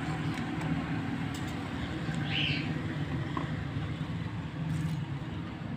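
Steady low background hum, with a single short bird-like chirp about two and a half seconds in.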